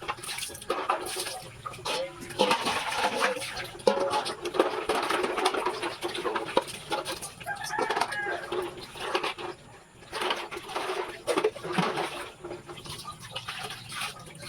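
Chickens clucking and calling, a busy, irregular run of bird calls.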